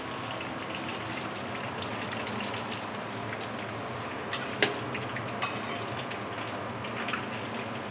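Shallots and garlic frying in deep oil, a steady sizzle, with a few clinks of a metal utensil against the pan, the sharpest about four and a half seconds in.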